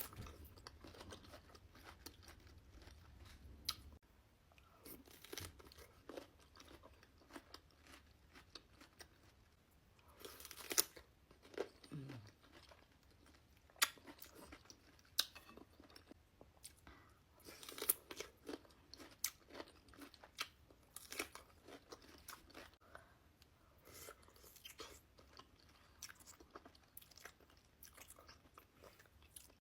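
A person eating seafood boil close to the microphone: wet chewing with irregular crunches and sharp cracks, a few much louder than the rest.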